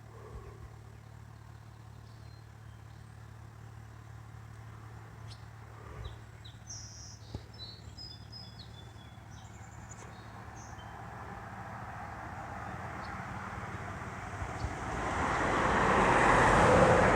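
A car passing: its tyre and engine noise builds slowly over several seconds to a peak near the end and begins to fade. Faint bird chirps sound a few times midway.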